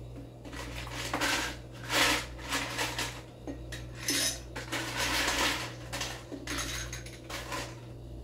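Ice cubes rattling and clinking as they are scooped out of a countertop ice maker's basket and dropped into a Collins glass, in a run of irregular clattering bursts.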